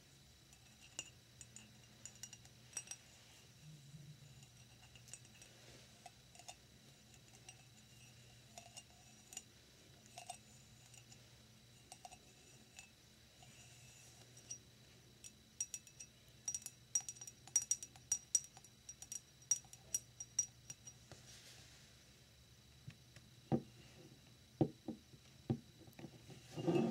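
Long fingernails tapping and clicking on a faceted glass mug held in the hands, in quick runs that are densest in the middle. Near the end come a few duller knocks of the glass against the wooden desk.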